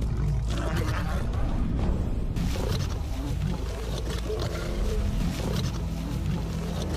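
Male lions growling and roaring at each other in an aggressive territorial confrontation between a pride male and a younger nomadic male.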